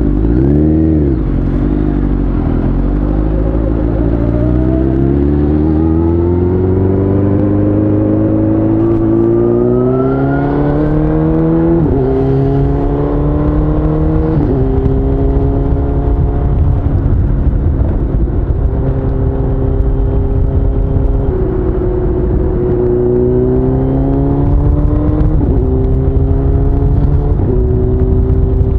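Suzuki GSX-R1000's inline-four engine pulling away from a stop. Its pitch climbs slowly for about ten seconds, then steps with two upshifts, holds steady at cruising revs, and climbs again with two more shifts near the end. A low wind rumble runs under it.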